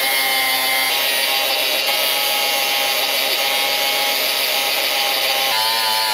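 Angle grinder with a flap disc grinding down the rivet heads on a motorcycle drive chain link, so that the pin can be knocked out and the old chain removed. Steady motor whine over the rasp of metal on the disc, the whine stepping slightly higher near the end.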